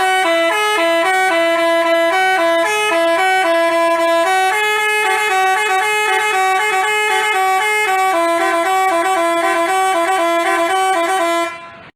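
Basuri telolet musical horn playing a tune: a loud run of stepped horn notes lasting about eleven seconds. The notes come quicker in the last few seconds before it cuts off abruptly.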